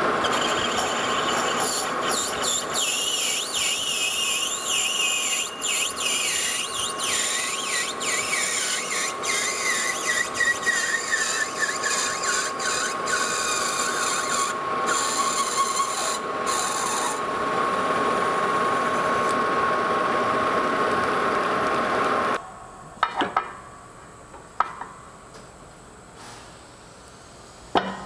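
Metal lathe parting off a turned steam pipe ring: the parting tool cuts with a steady scraping hiss, a steady whine and a squeal whose pitch slowly falls as the cut goes deeper. About 22 seconds in it stops suddenly, leaving a quiet room with a few clicks and knocks.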